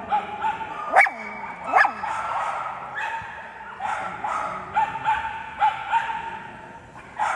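A dog whining in a run of short, high yips, with two sharp barks about a second and just under two seconds in.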